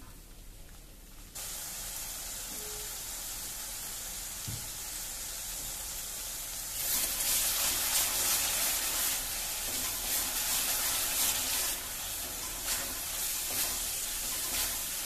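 Tomato-onion masala sizzling as it fries in a metal kadai while being stirred with a spatula. The sizzle starts suddenly about a second in, grows louder around halfway through and drops back a few seconds before the end.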